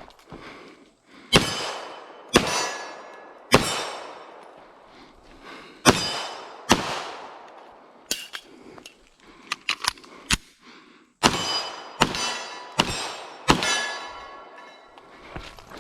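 9mm Canik TP9 SFX pistol firing about nine shots, five in the first seven seconds and four in quick succession near the end. Each crack is followed by a ringing clang from a steel silhouette target being hit. A few lighter metallic clicks come in a pause in the middle.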